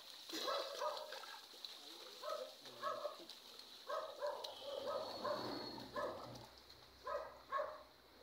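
Short animal calls repeated over and over, about one or two a second in irregular runs, over a faint steady high whine.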